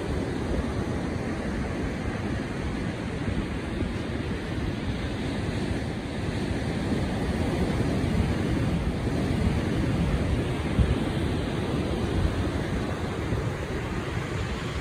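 Steady rushing noise of surf and wind, with wind buffeting the microphone; no distinct events stand out.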